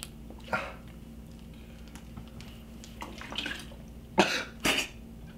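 A person coughing: a few soft coughs or breaths, then two loud, short coughs about half a second apart near the end, over a low steady room hum.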